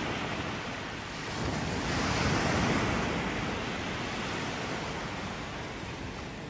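Sea waves breaking and washing up the beach, one surge swelling about two seconds in and then slowly easing off.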